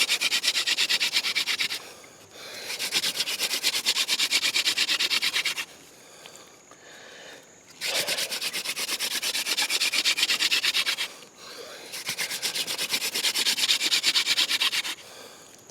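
Hand drill for friction fire: a yucca-stalk spindle spun rapidly back and forth between the palms, grinding into a trumpet-vine hearth board to build an ember. It comes in four runs of quick, even rubbing strokes, each about three seconds long, with brief pauses between them.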